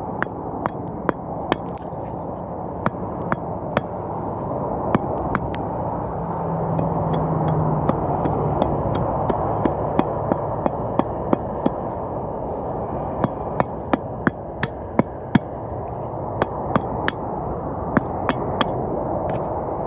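A chunk of wood being struck again and again while it is shaped into a makeshift wheel-hub piece: sharp, irregular knocks, about two a second, over a steady background hiss.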